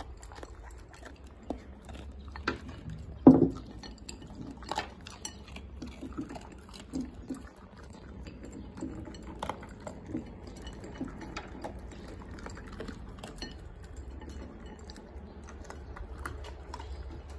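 Two dogs eating dry kibble from a ceramic bowl: irregular crunching and clinks of kibble and teeth against the bowl. About three seconds in there is one much louder knock, the bowl being set down on the wooden floor.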